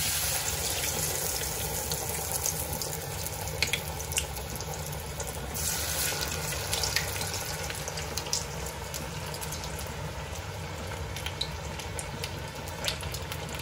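Cornflake-coated soya nuggets deep-frying in hot oil: a steady sizzle with scattered sharp crackles.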